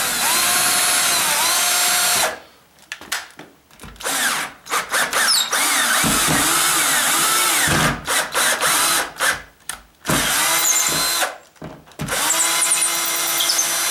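12-volt cordless drill driving a screw into a stucco wall in several bursts, each a second or a few seconds long with short pauses between them. Its motor whine shifts in pitch as the screw turns in the hole, widening it for a plastic anchor.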